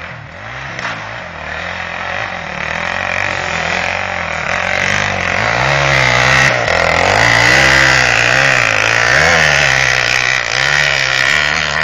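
Dirt bike engine revving up and down about once a second as the bike rides the dirt track, growing louder over the first several seconds as it comes closer.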